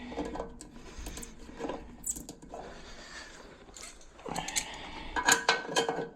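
Clinks, clicks and scrapes of toilet handle hardware against the porcelain tank while the handle's reverse-threaded retaining nut is worked on, busiest near the end.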